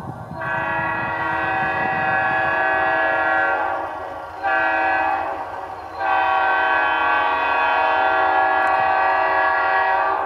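Air horn of an EMD SD40-2 diesel locomotive sounding the grade-crossing signal. It is a chord of steady tones: a long blast, a shorter one about four seconds in, then a long blast held from about six seconds in.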